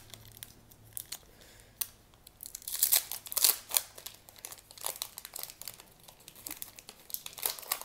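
Foil wrapper of an Upper Deck hockey card pack being torn open and crinkled by hand, an irregular run of crackles that is loudest about three seconds in.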